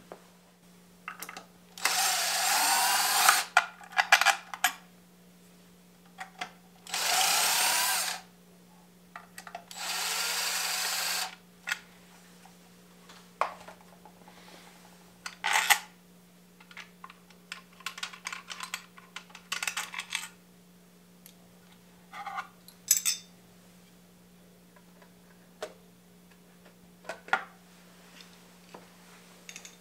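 A power drill/driver runs in three bursts of a second or so each, about two, seven and ten seconds in, backing out the fasteners of the stock air cleaner on a Harley-Davidson Twin Cam. Scattered light metallic clicks and clinks of parts being handled follow.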